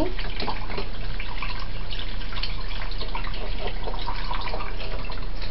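Water splashing and trickling with many small drips as textured soy protein is stirred and rinsed in water.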